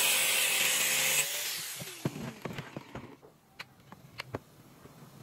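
Angle grinder grinding off screw tips sticking out of wood, a steady hissing grind over the motor's whine. About a second in it is switched off and winds down, falling in pitch, followed by a run of light knocks and clicks as the wood and tools are handled.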